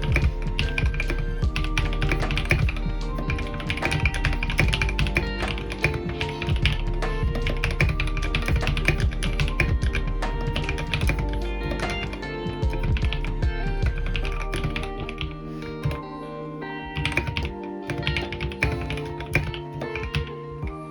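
Fast, continuous typing on a GK61 mechanical keyboard fitted with lubed NovelKeys Cream linear switches, the keystrokes clacking in quick runs over background music.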